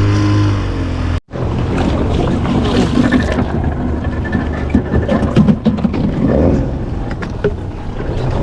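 Fishing boat under way: the engine runs under a steady rush of wind and water, with scattered knocks. The sound drops out for a moment about a second in.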